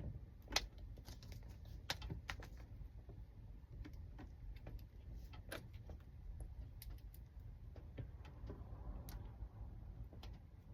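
Irregular small metal clicks and taps of lock parts being handled and fitted as a rekeyed lock is put back together.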